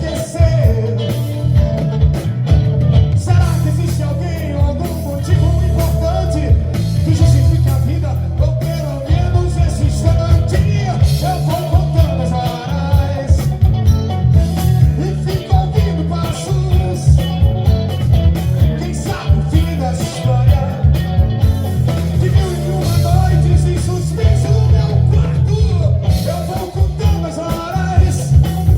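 A song playing: a heavy, pulsing bass beat with a voice singing over it.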